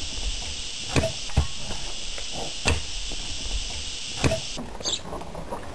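Pickaxe striking hard, stony soil: four sharp blows, irregularly spaced, with a steady high hiss behind them that cuts off near the end.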